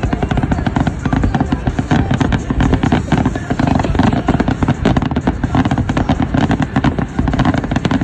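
Aerial fireworks display: a rapid, unbroken barrage of shell bursts and crackling stars, loud throughout.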